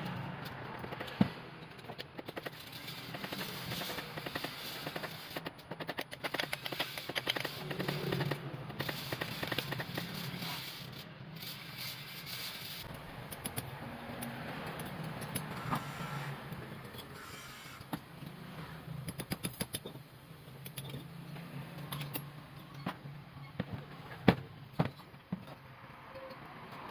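Hand work on a motor: rapid clicks and scraping with a few sharp knocks, the loudest about a second in and two more near the end.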